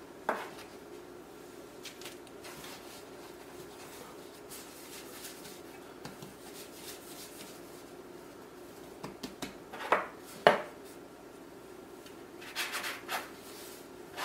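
Hands gathering and pressing soft biscuit dough into a ball on a floured counter, soft rubbing and patting. There are two sharp knocks about ten seconds in and a few light clatters near the end as a metal cookie cutter is handled.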